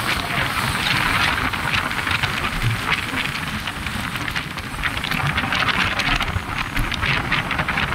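Wind rushing over the microphone of a moving motor scooter, with a rumble of engine and road noise underneath.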